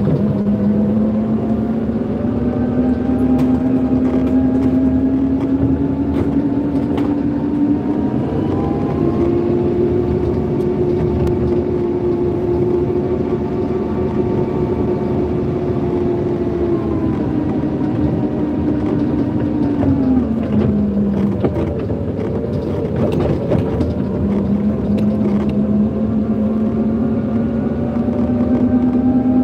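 Forklift engine running as it is driven, its note climbing with engine speed over the first ten seconds, holding, dropping back about twenty seconds in and rising again near the end. A few sharp clicks and knocks sound now and then over the engine.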